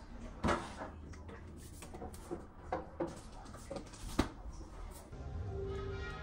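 Clunks and knocks of groceries being put into a side-by-side refrigerator and its doors being shut, with a sharp thud about four seconds in. Music starts about a second before the end.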